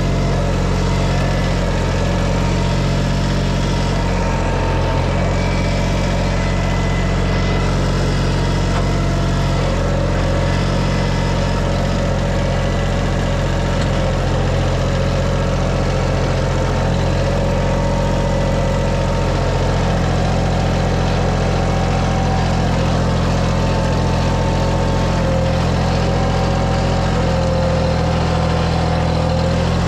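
Tractor engine running steadily at a constant speed, with an unchanging drone.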